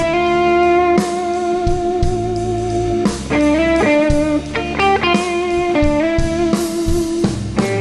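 Live electric blues band playing. A lead electric guitar fills the gap between vocal lines with long held, bending notes over a steady drum beat and bass.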